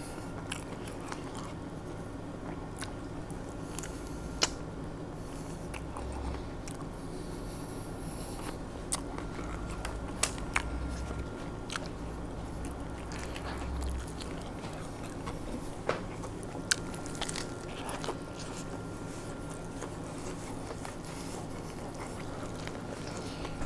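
A person biting into and chewing a burger close to the microphone, with scattered small clicks over a steady low room hum.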